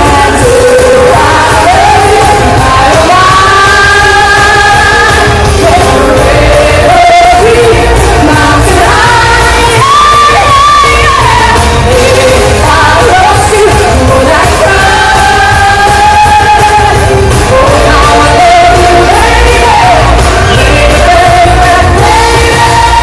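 Loud pop song with singing, amid yells and shouts from a crowd.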